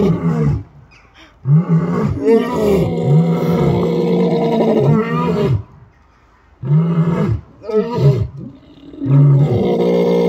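Lions roaring: a long run of deep, repeated short calls, then a pause of about a second just past the middle before the calls start again and carry on to the end.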